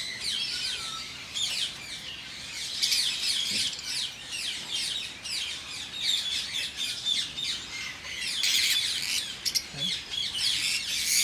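A flock of lovebirds chattering: many short, high-pitched chirps overlapping without pause, growing denser near the end.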